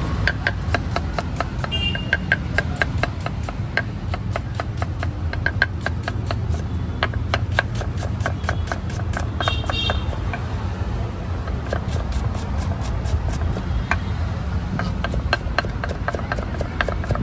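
Rhythmic tapping of a cooking utensil, about three to four sharp strikes a second, over a steady low rumble, with a short high-pitched toot about ten seconds in.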